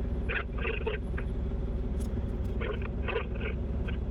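Gravel truck's diesel engine idling steadily with a low rumble. Short bursts of faint squeaking or chirping come twice over it.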